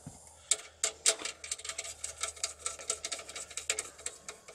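Quick, uneven clicking and ticking of a hand driver turning the bolt that secures a wiring-harness plug to the car's ECU, with small plastic connector knocks. A faint low steady hum runs underneath.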